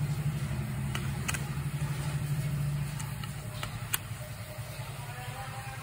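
A steady low hum, which eases a little about three seconds in, with a few sharp plastic clicks as the tripod's phone clamp is handled.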